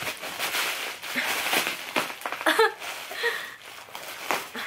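Cardboard box and paper packaging rustling and crinkling in uneven bursts as it is handled and opened, with a short vocal sound about two and a half seconds in.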